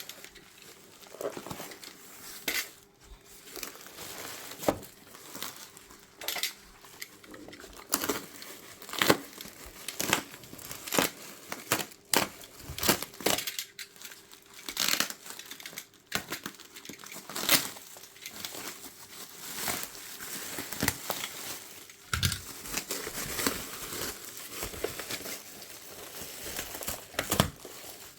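Packaging being unwrapped: crinkling and tearing, with scattered sharp clicks and knocks at an irregular pace.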